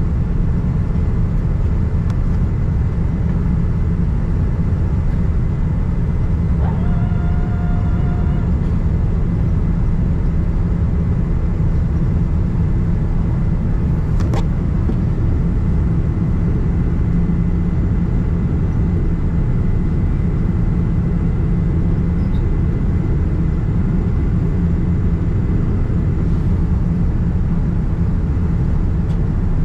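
Steady low roar of airflow and engines inside a Boeing 787-9 cabin on approach. A brief steady tone of about two seconds sounds near 7 seconds in, and a single sharp click comes about halfway through.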